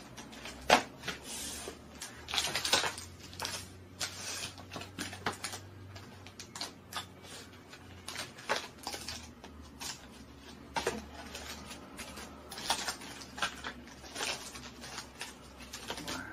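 Small cardboard blind boxes and their contents being handled and opened on a table: irregular clicks, taps and rustling of packaging, with one sharper click just under a second in.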